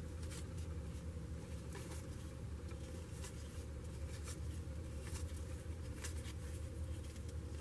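Faint, scattered clicks and slides of trading cards being handled and flipped through one by one, over a steady low hum.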